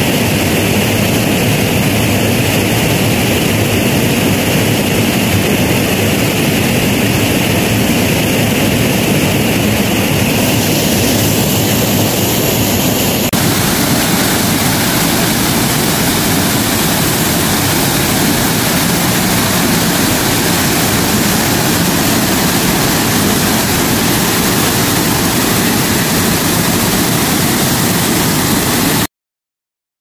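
Loud, steady roar of rushing water from a river and waterfall, an even hiss with no pitch to it. It changes slightly in character about 13 seconds in and cuts off abruptly near the end.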